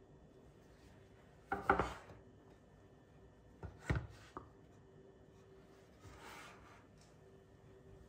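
A coconut-shell bowl and a wooden tray handled on a countertop: a scraping clunk about a second and a half in, then a sharp wooden knock about four seconds in as the bowl is set down on the tray, followed by a light click and a soft rub.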